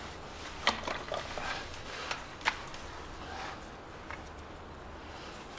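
A few light metallic clicks and taps as the turbocharger's oil feed line and its fitting are handled by hand, over a low steady hum.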